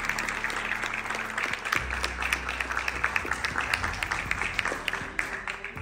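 Audience applauding, a dense patter of hand claps that thins out and fades near the end.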